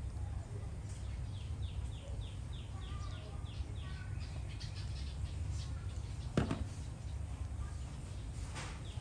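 A run of short, high, falling chirps, about four or five a second, from an animal, over a steady low rumble, with a single sharp knock about six and a half seconds in.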